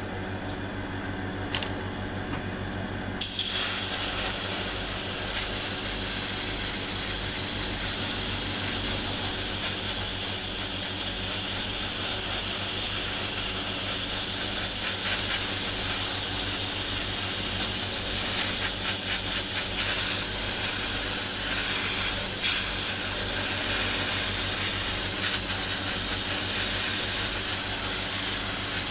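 Airbrush spraying paint: a steady hiss of air that starts suddenly about three seconds in, over the continuous hum of an air compressor.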